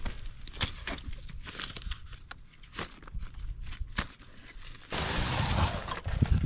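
Irregular crunching and knocking from footsteps and camp gear being handled, with a burst of rustling noise about five seconds in.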